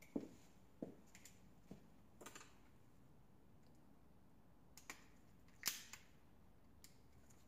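Handheld torch's igniter clicking about eight times at irregular intervals without the flame catching; paint on the torch is making it hard to light.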